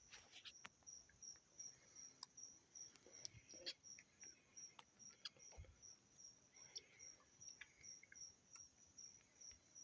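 A night insect chirping faintly: one high chirp repeating at an even pace, a little over two a second, with faint scattered clicks in the background.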